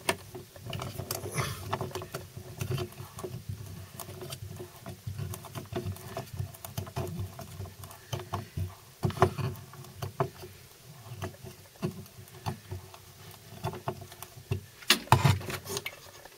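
A small screw being driven by hand into plywood to fasten a train-detector module: irregular scratchy clicks and creaks, with a few louder knocks near the end.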